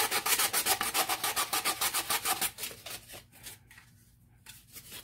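Sandpaper rubbed quickly back and forth by hand over the epoxy-coated stainless steel rim of a tumbler, about six strokes a second, sanding it down to bare a little of the steel. The strokes thin out and stop about three seconds in, then start again at the very end.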